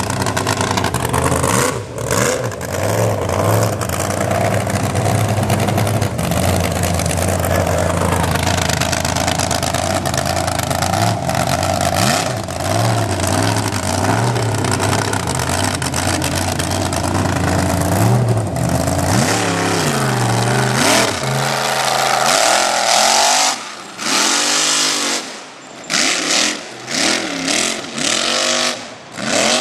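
Mega truck engine running steadily, then revving up and down, with the sound breaking up in several sharp dips near the end.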